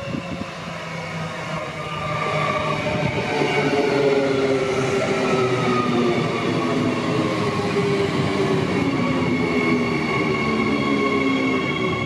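Queensland Rail electric multiple-unit passenger train approaching and passing close by. Its motor whine is several tones gliding slowly lower over a dense wheel-and-rail rumble, growing louder over the first few seconds as the train draws level.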